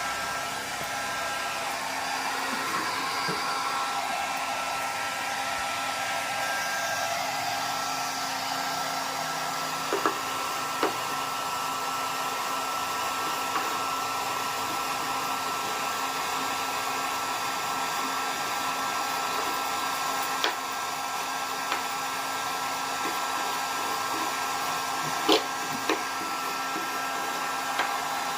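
Hair dryer running steadily with a constant motor whine. A few sharp clicks or taps cut through it from about a third of the way in.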